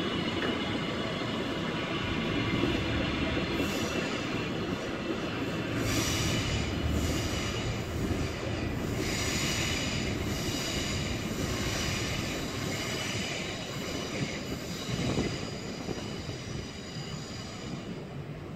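Queensland Rail electric suburban trains running on curved track: a steady rumble of wheels on rail, with high-pitched wheel squeal, several tones at once, setting in about six seconds in and fading after about eight seconds.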